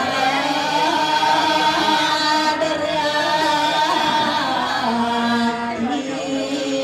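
Ceremonial chanting: voices singing long, slowly moving held notes.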